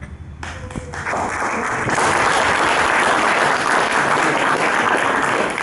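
Audience applauding after a piano piece ends. The clapping starts about half a second in and swells to full strength by about two seconds.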